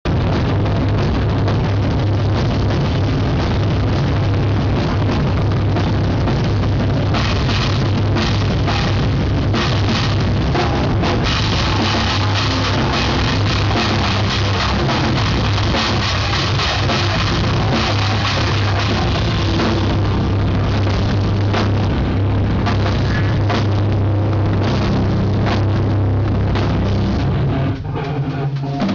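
Live rock band playing loudly, driven by a drum kit with cymbals. The sound drops briefly about a second before the end, then comes back in.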